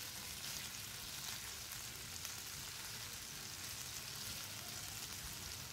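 Chunks of hake frying in oil in a nonstick wok: a steady sizzle as the fish browns.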